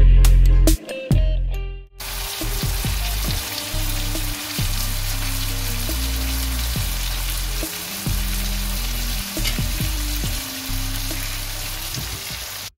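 Flour-coated horse mackerel frying in shallow oil in a non-stick pan, giving a steady sizzle that starts about two seconds in. Quieter electronic background music runs under it.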